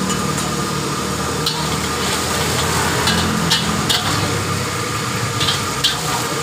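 Steel ladle and wok spatula clinking and scraping against a steel wok while sauce is stirred and sizzles, a handful of sharp clinks, most of them in the second half. A steady hum runs underneath.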